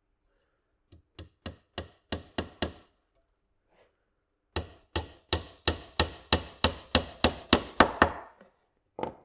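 Claw hammer driving a nail down into the corner joint of a wooden hive roof frame: a run of about seven light taps that grow louder, then after a pause about a dozen firmer, steady blows, roughly three a second.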